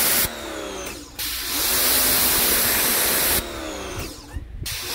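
Greenworks GPW1502 electric pressure washer spraying concrete in bursts as the gun's trigger is pulled and released. Each burst is a loud hiss of the water jet, with the pump motor's whine rising as the spray starts and falling away when it stops. One burst ends just after the start, a longer one of about two seconds begins about a second in, and another starts at the very end.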